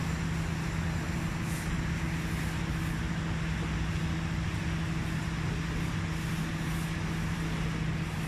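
Steady low mechanical hum holding one pitch, over a constant background of noise like passing traffic.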